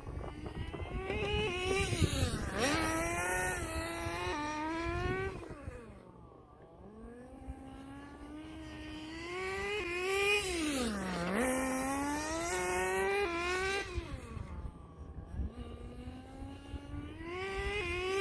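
Nitro RC car's Tamiya FS18LT two-stroke glow engine, breathing through a TM2 manifold and muffler, revving up under throttle and dropping back off again and again as the car is driven around. It gets louder and fainter as the car comes near and goes away, and is quietest about six to eight seconds in.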